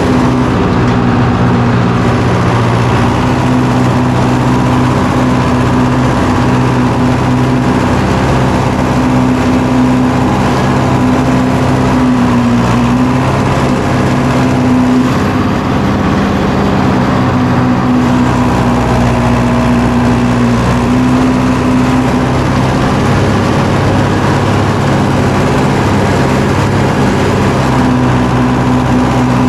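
Tractor engine working steadily under load while pulling a chisel plow, its note dipping briefly a couple of times.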